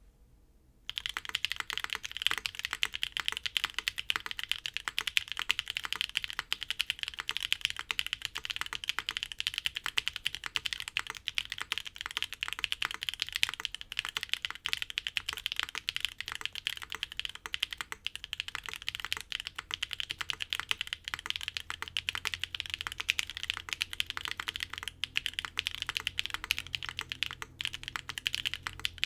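Fast, continuous typing on a mechanical keyboard fitted with factory-lubed, filmed Gateron Onyx switches, GMK keycaps and an aluminium plate, in a Geonworks F1-8X V2 case. It starts about a second in.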